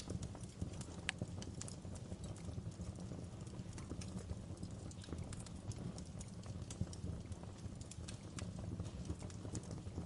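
Wood fire crackling: a steady low rumble of flames with irregular sharp pops and snaps from the burning logs, a few louder ones standing out.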